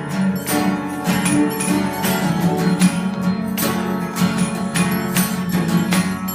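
Russian church bells ringing a rhythmic peal: small bells struck about twice a second, each stroke ringing on, over a steady hum from the larger bells.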